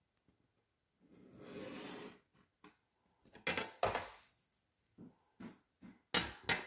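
A metal ruler being handled on a tabletop: a soft scrape as it slides about a second in, a few knocks as it is set down, and a louder clatter near the end.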